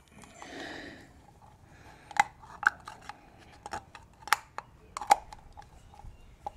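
Sharp plastic clicks and taps, about a dozen at irregular intervals, as fingers press and work a Mercedes-Benz W204 centre wheel cap into the alloy wheel's hub bore while it is not yet seated flush. A soft breathy rustle comes in the first second.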